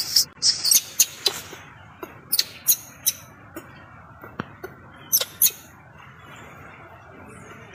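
Newborn macaque giving short, high-pitched squeaks in irregular bursts, dying away near the end.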